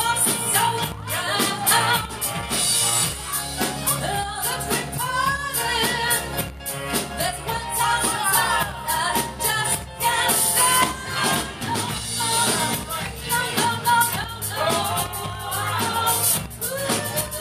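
Live band playing a soul song: a woman singing lead into a microphone over electric guitars and a drum kit.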